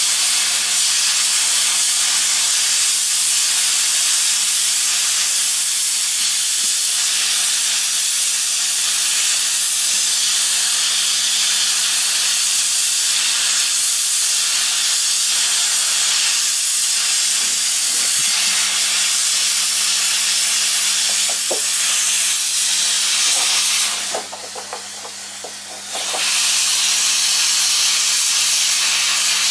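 Steady hiss of hot air blowing from a GEP-2 hot-air plastic welding gun, with a low steady hum underneath. The hiss drops away for about two seconds near the end, then comes back.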